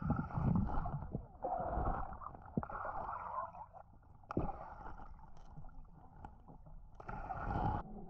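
Muffled underwater sound of creek water, picked up through a GoPro's waterproof housing: it gurgles and swells in waves of about a second, with a few sharp clicks and knocks in between.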